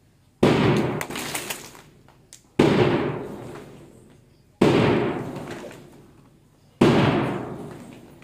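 Loud sharp beats keeping time for a mass exercise drill, about one every two seconds. Each starts suddenly and dies away slowly over more than a second.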